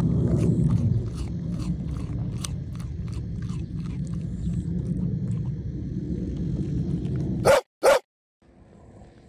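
A dog chewing and crunching on something: many short crisp crunches over a steady low rumble. Near the end come two short loud sounds in quick succession, then the sound cuts off abruptly.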